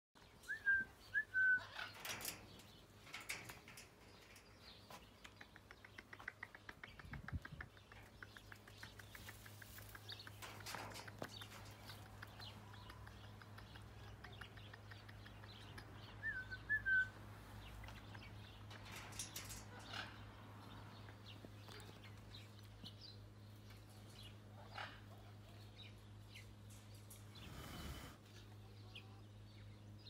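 African grey parrot giving short rising whistled chirps, a quick run of three near the start and two more about halfway, among scattered soft clicks. A steady low hum sets in about a quarter of the way in.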